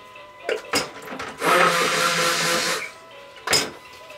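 Stick blender (immersion blender) run in a short burst of about a second and a half, a whirring motor with a hissing spin, with a few sharp knocks of the blender and cups against the counter before and after.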